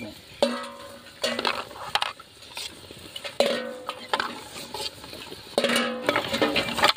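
A steel ladle knocks and scrapes against a large aluminium cooking pot and a steel bowl as boiled eggs are scooped out of the water. There are about eight irregular metallic clanks, each leaving a short ring.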